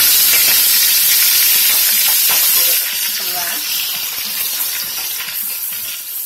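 A whole porgy sizzling loudly in a pot of hot oil, freshly lowered in, with a dense, hissing fry. The sizzle eases a little about three seconds in and carries on more softly.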